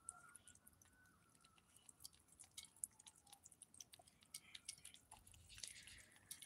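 Faint chewing of kittens and a cat eating cat food from a plate: a run of small, irregular clicks.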